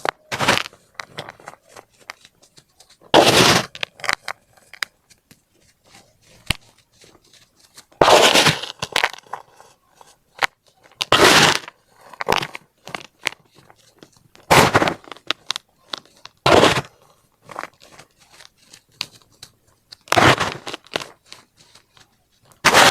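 Baking soda being crushed: about eight loud, crisp crunches spaced a few seconds apart, with small crackles and crumbling in between.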